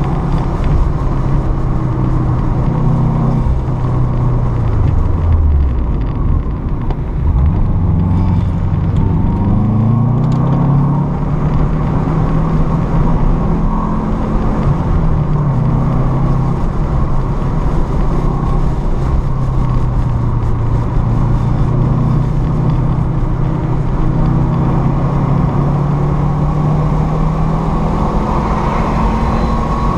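Car engine under load, heard from inside the cabin, running at roughly 4,000 to 5,000 rpm. The engine pitch drops as the driver lifts off about five seconds in, climbs again a few seconds later, then holds steady and rises slightly near the end as the throttle opens wider.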